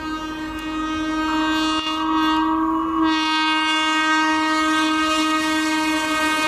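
WAP-4 electric locomotive's horn sounding one long continuous blast as the train approaches at speed, growing louder, its pitch stepping down slightly about halfway through. Beneath it runs the rumble of the approaching train.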